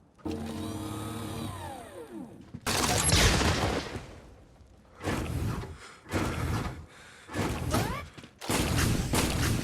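A string of Cyberman sound effects. A mechanical tone slides down in pitch, a loud hissing blast comes about three seconds in, then three short whirring bursts that rise in pitch, and near the end a fast run of repeated clanks.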